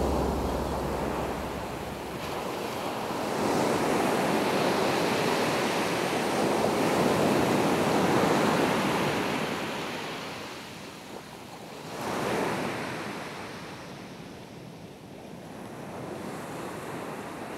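Ocean surf breaking and washing up a sandy beach, rising and falling with the waves, with wind on the microphone. The surf swells for the first several seconds, ebbs, and a second, shorter surge comes about twelve seconds in.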